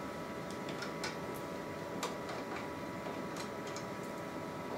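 Faint, irregular plastic clicks and ticks as the heated roller assembly is worked out of the Zebra ZXP Series 8 card printer's laminator by hand, over a steady background hum with a few faint tones.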